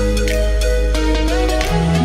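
Background music: an electronic track with held bass notes, a stepping melody and a regular beat.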